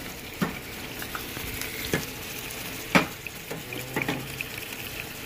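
Raw shrimp sizzling in a hot frying pan, a steady hiss, with a few sharp knocks of a utensil against the pan as they are stirred, the loudest about three seconds in.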